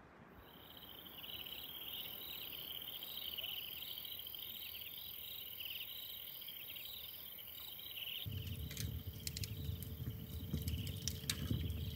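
Night insects chirping in quick repeated trills over a steady high-pitched hiss. About eight seconds in this gives way to a wood fire crackling in a fireplace: sharp pops and snaps over the low rush of the flames.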